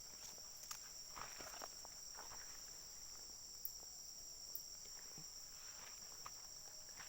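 Steady, high-pitched insect chorus holding two even tones, with faint scattered rustling and clicking underneath.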